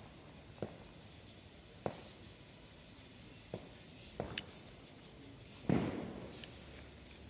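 Scattered sharp pops of distant firecrackers, about five over several seconds, the loudest about six seconds in with a short echoing tail.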